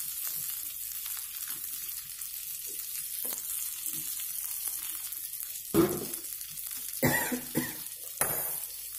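Fish frying in oil in a pan, sizzling steadily, with a few knocks and scrapes of a metal slotted spoon against the pan about two-thirds of the way through.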